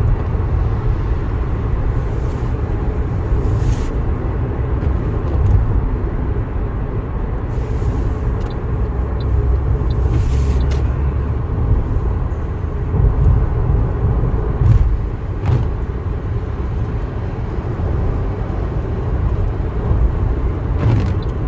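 Steady road and engine noise of a moving car heard from inside the cabin, a continuous low rumble, with a few brief rushes of noise along the way.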